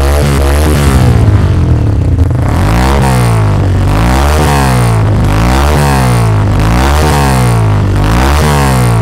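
Honda MSX 125 Grom's single-cylinder four-stroke engine revved over and over through a GPR aftermarket slip-on silencer. The pitch rises and falls about once a second, with a louder, rougher stretch between about one and two and a half seconds in.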